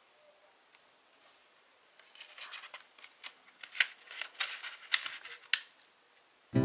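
Origami paper being folded and creased by hand: a run of crisp paper crackles and ticks starts about two seconds in and lasts a few seconds. Background music comes in right at the end.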